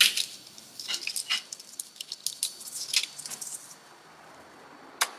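Light ticks and rustles of a thin plastic sensor sheet and controller parts being handled and fitted by hand, with one sharper click near the end.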